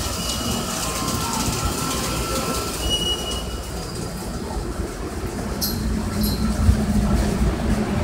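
Subway train running, with high steady wheel squeal for the first few seconds and a lower steady hum later.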